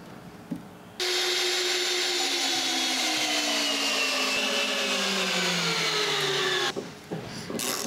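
Power drill starting abruptly about a second in and running under load for almost six seconds, its pitch sinking steadily as it works into the wood, then stopping abruptly, followed by a few knocks.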